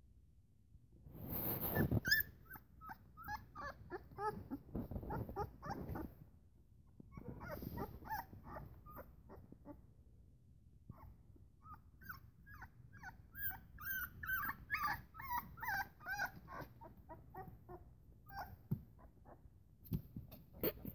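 Very young Great Pyrenees–Akbash puppies whimpering and squeaking in bouts of short, high cries, with rustling from the puppies shifting on their rug; the loudest rustle comes about a second in.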